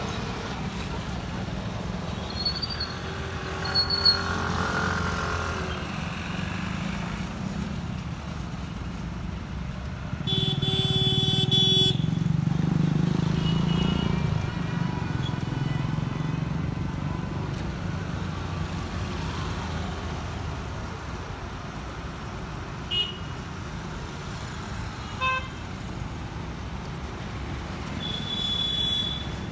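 Mixed road traffic at a busy city junction: a steady rumble of car, motorcycle, scooter and auto-rickshaw engines and tyres passing. A loud vehicle horn sounds for about a second and a half about ten seconds in, with short beeps and toots scattered through and another horn near the end.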